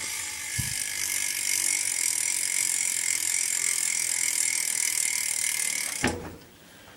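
BMX rear hub freewheeling as the back wheel is spun by hand, its pawls giving a rapid, even ratcheting click that stops about six seconds in. The hub sounds pretty good.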